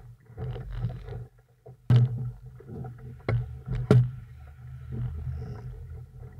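Small sailing dinghy under way: water against the hull and a low, uneven rumble through the boat, with three sharp knocks about two, three and a half, and four seconds in.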